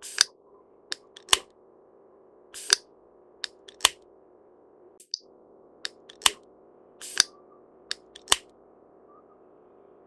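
Great spotted woodpecker pecking at dead wood: irregular sharp taps, one or two a second, not a drum roll, over a faint steady hum.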